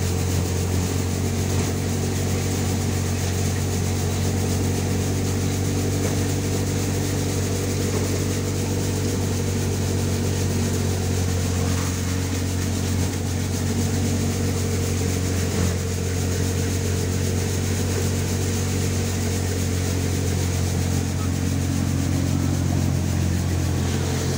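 Malwa bucket-model thresher running steadily while threshing black gram: a constant low mechanical hum with no change in speed.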